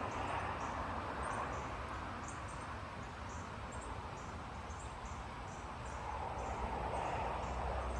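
Wind rushing through trees, swelling near the start and again near the end as the storm approaches. Insects chirp throughout in a high, regular pulse about twice a second.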